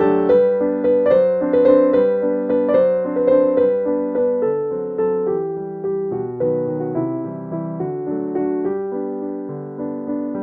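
Background piano music: a steady melody of struck notes with a regular beat.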